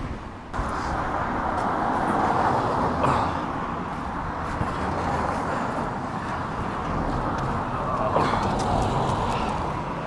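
Steady hiss of road traffic, swelling as vehicles pass about three seconds and eight seconds in, with a few faint clicks.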